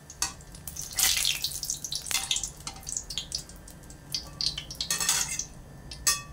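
Flour-battered jackfruit pieces frying in hot oil in an aluminium pan, crackling and spitting irregularly, with a slotted metal spatula scraping and clinking against the pan as the pieces are turned.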